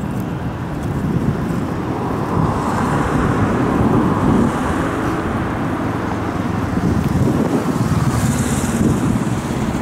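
Airbus A321neo jet taking off and climbing away, its Pratt & Whitney PW1100G geared turbofans at takeoff thrust. A steady, deep jet noise that grows louder over the first few seconds as the aircraft lifts off, then holds.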